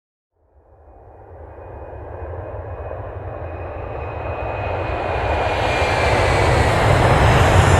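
Jet aircraft approaching: a rushing jet roar with a deep rumble fades in about half a second in and grows steadily louder, with a thin whine sliding slowly down in pitch.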